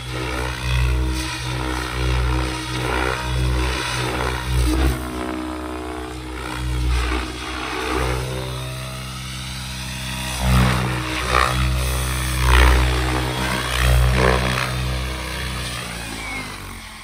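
Electric 700-size RC helicopter (XL Power Specter 700) flying past, its rotor blades and motor whirring with the pitch sweeping up and down as it moves. The sound falls away near the end as it comes down to land.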